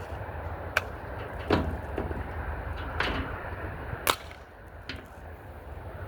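Remington Airmaster 77 pump-action BB gun being worked and fired: a series of sharp clicks and clacks, about six in six seconds. The loudest is a crack about four seconds in, and a longer clack comes about a second and a half in.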